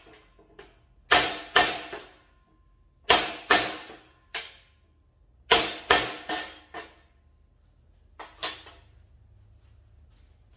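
A hickory axe handle is struck hard against a knife's edge again and again, testing how tough the edge is. The blows mostly come in pairs about half a second apart, three pairs in all, each with a short metallic ring. Lighter knocks follow, ending in two near the end.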